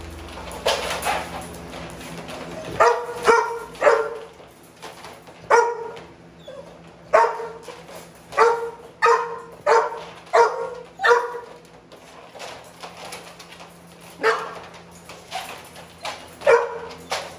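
Pit bulls barking in short single barks, about a dozen and a half at uneven intervals, excited in their crates at feeding time.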